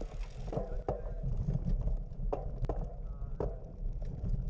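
Irregular sharp clicks and knocks, a few of them spread across the moment, over a steady low rumble, with faint voices in the background.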